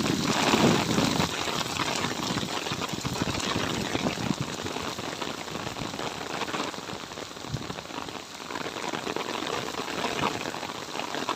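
Steady rain falling: a dense patter of raindrops.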